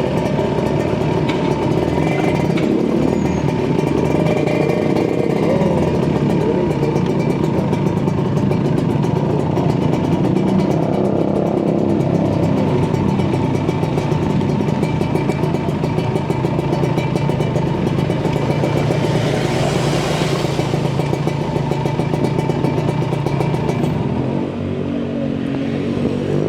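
Kawasaki Ninja 150 RR's 150 cc two-stroke single-cylinder engine running steadily under way on the road, with a brief rush of noise about twenty seconds in. Near the end the engine eases off.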